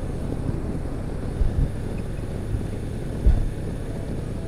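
Suzuki V-Strom 250 parallel-twin motorcycle cruising at a steady speed: a low, even engine drone under wind rumble on the rider's microphone, with a couple of brief louder wind buffets.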